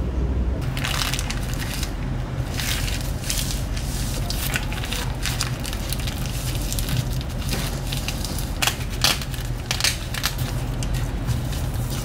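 Dried laver (gim) sheets crackling and crunching as hands lift them and press them flat on a wooden cutting board, in irregular crackly spells.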